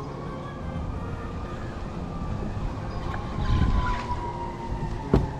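Electric trolling motor whining, its pitch slowly rising and then falling, over a low rumble. There is a sharp knock near the end.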